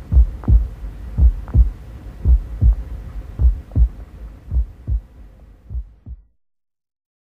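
Heartbeat sound effect: six low double thumps, lub-dub, about one a second over a low hum, growing fainter and stopping about six seconds in.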